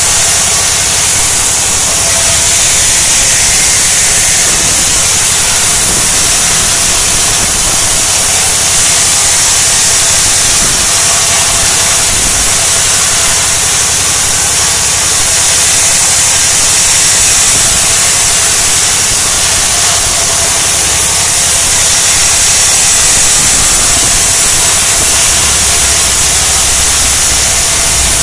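Band saw ripping a dry sengon plank lengthwise: a continuous, loud, hissing rasp of the blade cutting through the wood, with the saw machine running steadily throughout. The uploader credits the clean cut to a sharp blade.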